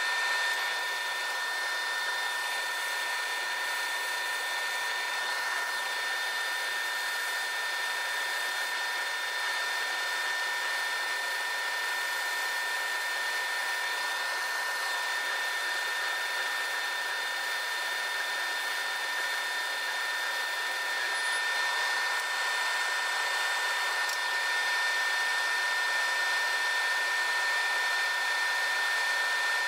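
Laser engraving machine running while it engraves dots into an acrylic light guide panel: a steady whir of fans and air, with a few steady whining tones on top, getting slightly louder about two-thirds of the way through.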